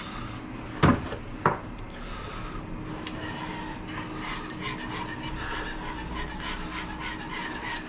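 Wire whisk scraping around the bottom of a pot, stirring cold milk into a thickened flour-and-stock roux base to keep it from lumping. Two sharp knocks about a second in, then steady, rapid scraping.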